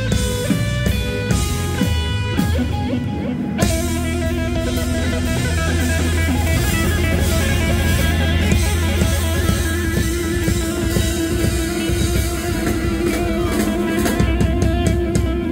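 A rock band playing live, with electric guitar over a drum kit. For the first three and a half seconds it plays a run of quick stepping notes, then shifts to long held notes while the drums keep going.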